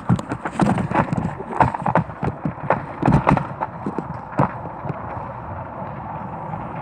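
RipStik caster board rolling over pavement, with irregular clattering knocks over a steady rolling noise. The knocks thin out after about four and a half seconds, leaving the rolling noise alone.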